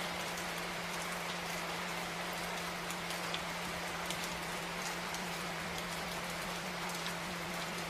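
Steady rain with scattered raindrop ticks, over a constant low hum.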